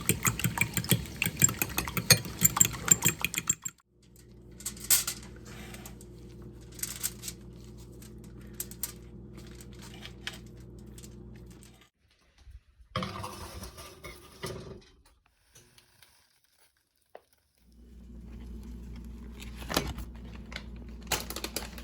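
Eggs being whisked briskly in a bowl, a fast continuous clicking of the utensil against the bowl, for the first three and a half seconds. Then a steady low electrical hum with a few light taps and clatters, broken near the middle by a short burst of noise and a few seconds of near silence before the hum returns.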